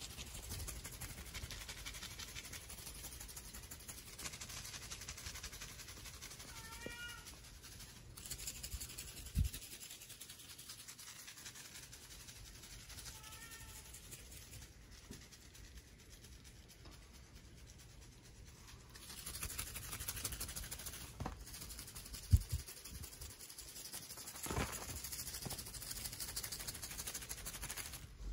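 Bengal kittens mewing, two short high mews about seven and thirteen seconds in. Soft rustling and a couple of dull thumps can be heard between them.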